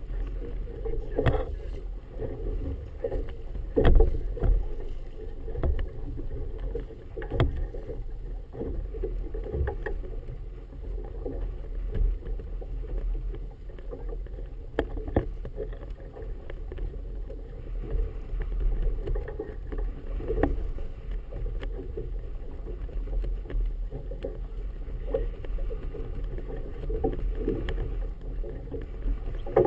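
Choppy harbour water slapping against the hull of a boat, with wind buffeting the microphone as a steady low rumble. Irregular knocks come every few seconds, the loudest about four seconds in.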